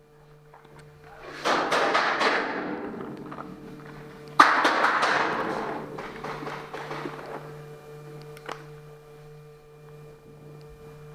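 Two bursts of rapid paintball fire, the first about a second and a half in and the second, sharper and louder, about four and a half seconds in, each a quick string of shots and knocks that fades over a couple of seconds.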